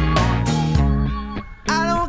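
Background reggae music with a bass line; the music drops away briefly about one and a half seconds in, then comes back.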